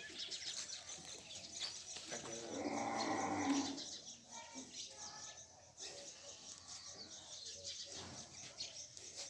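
A cow mooing once, a single drawn-out call of under two seconds.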